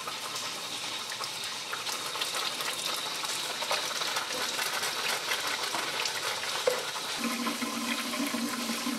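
Kitchen faucet running a thin stream of water into a sink basin, splashing steadily with small scattered crackles, as air is flushed out of the freshly refilled water line. A low steady hum joins about seven seconds in.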